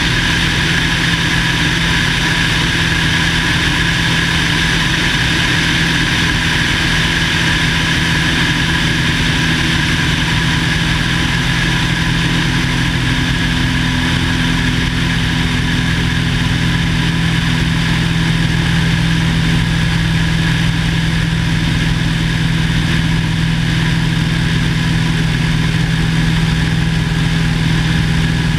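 Cessna 170A's six-cylinder Continental engine and propeller running at a steady, unchanging power.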